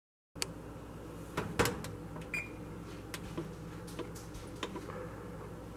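Electric range's touch-pad controls being pressed to set the bake temperature: scattered soft clicks and one short beep about two and a half seconds in, over a low steady hum.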